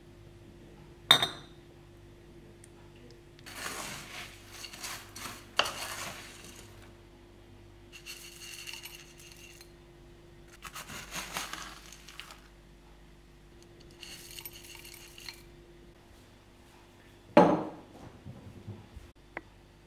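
A metal spoon clinks sharply against a ceramic bowl, then comes a few stretches of dry, crunchy rattling as granola is spooned into the bowl. Near the end the bowl is set down on a wooden table with a loud knock.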